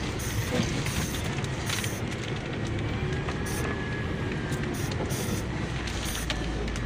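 Sinotruk HOWO dump truck's diesel engine running steadily, heard from inside the cab, with scattered rattles and clicks from the cab as it rolls along a dirt road.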